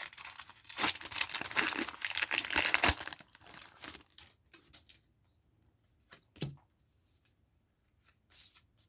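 Foil booster pack wrapper being torn open and crinkled for about three seconds, then a few faint rustles and taps as the pack is handled.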